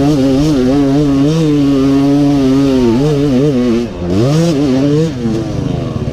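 Trail motorcycle engine held at high revs under load, its pitch wavering. It drops sharply about four seconds in, picks up again, then falls off as the throttle is eased.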